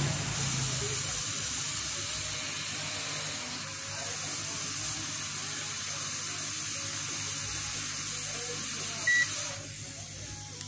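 Hot air rework station blowing a steady hiss onto a small 8-pin IC while it is soldered onto a circuit board. A short electronic beep sounds about nine seconds in, and the airflow stops moments later.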